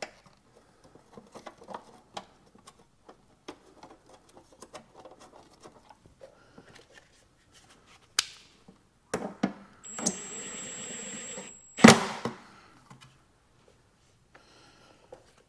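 Hands working on a tail light housing and its wiring: scattered small clicks and rustles, a few sharper clicks, then a steady whir for about two seconds that ends in a loud sharp click.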